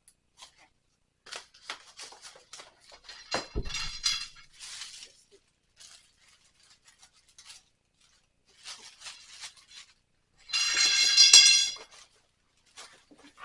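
Parts of a clothes drying rack clinking and rattling as they are unpacked and handled. There are scattered light clinks, a thump about three and a half seconds in, and a louder rattle lasting about a second and a half near the end.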